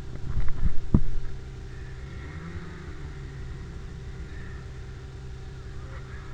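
Snowmobile engine running steadily at a low idle. A few sharp knocks come in the first second.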